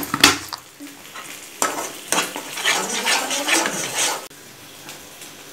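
Metal slotted spatula stirring and scraping a thick, creamy masala in a frying pan, with a couple of sharp clacks against the pan at the start and a low sizzle underneath. The stirring stops about four seconds in, leaving only the quiet sizzle.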